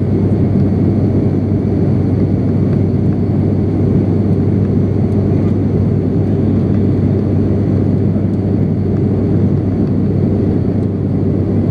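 Steady cabin drone of an ATR 72-600's Pratt & Whitney PW127 turboprop engines and six-blade propellers in flight, heard inside the cabin by the window: a loud, steady low hum over an even rushing noise.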